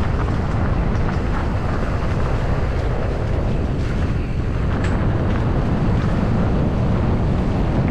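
Mountain bike (2020 Kona Process X) running fast downhill over a dirt trail: a steady rumble of tyres and wind noise on the microphone, with a few clicks and knocks from the bike around the middle.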